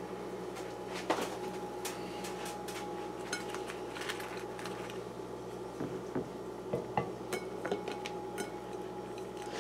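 Faint, scattered taps and light clinks of hands and a utensil against a ceramic plate as soft flour tortillas are handled and filled. A steady low background hum runs underneath.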